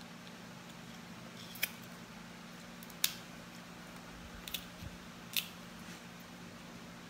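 Cooked crab shell cracked and snapped apart by hand: four or five short, sharp cracks about a second apart, over a steady low hum.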